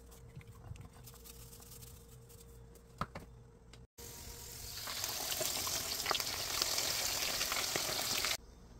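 Hot oil in a wok sizzling hard as food fries. It starts suddenly about four seconds in after a few faint taps, swells over the next second and cuts off abruptly near the end.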